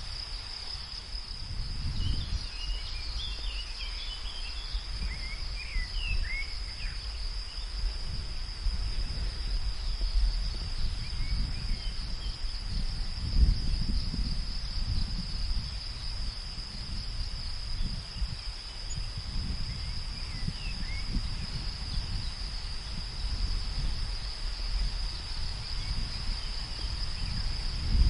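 Nature ambience: insects trill steadily at a high pitch over a low, gusty wind rumble. A few short bird chirps come a few seconds in and again past the middle.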